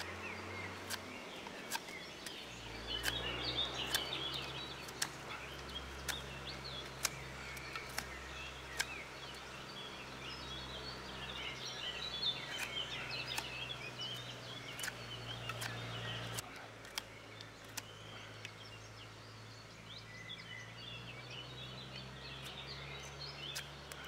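Victorinox Huntsman pocket knife whittling a piece of wood flat: short sharp clicks of the blade cutting, at irregular intervals. Birds chirp throughout, over a low steady hum.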